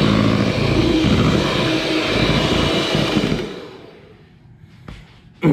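Electric hand mixer whipping egg whites and sugar into stiff meringue, its motor running steadily. It is switched off about three seconds in and winds down.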